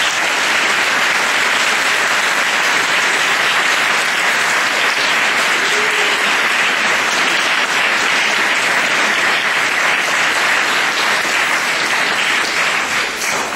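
Audience applauding, loud and steady, starting all at once and dying away near the end.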